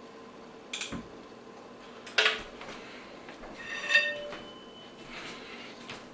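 Hand tools and metal parts clinking: a few short sharp knocks and one ringing metallic clink about four seconds in, as the engine mount bolts are worked off a KA24DE engine block.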